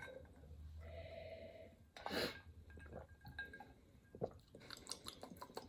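A person drinking soda from a glass: quiet sips and swallows, a breath out about two seconds in, then small mouth clicks and lip smacks while tasting it.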